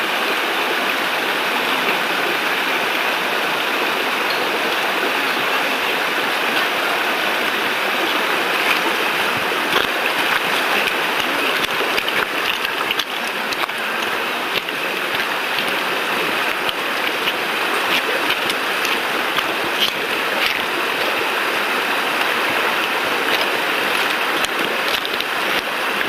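Shallow mountain stream running over stones: a steady, even rush of water, with a few faint clicks.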